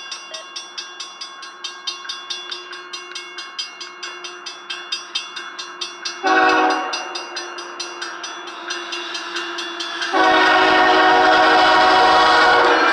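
Grade-crossing bell ringing at about three strikes a second, while a BNSF ES44AC locomotive's horn sounds a short chord blast about six seconds in, then a louder long blast from about ten seconds in that holds on as the engine nears the crossing.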